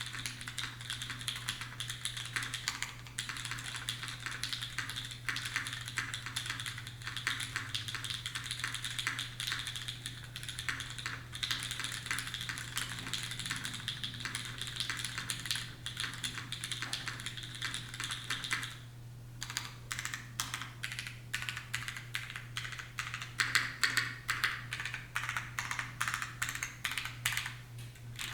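Steady, fast typing on a Duck Octagon V2 custom mechanical keyboard: lubed pre-retooling Cherry MX Black linear switches in an aluminium top-mount plate under GMK keycaps, giving a dense run of keystroke clacks. The typing pauses briefly about two-thirds of the way in, then resumes with sparser, sharper strokes. A low steady hum sits underneath.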